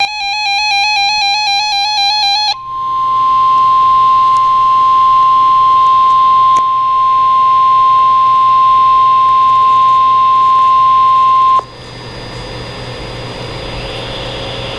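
Emergency Alert System weather warning tones: about two and a half seconds of a buzzy warbling alert tone, then the single steady NOAA Weather Radio 1050 Hz warning alarm tone for about nine seconds, which cuts off suddenly into radio hiss.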